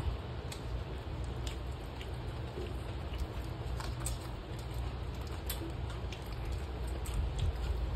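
Eating noises: irregular small clicks and smacks of chewing and hand-eating, over a steady low rumble.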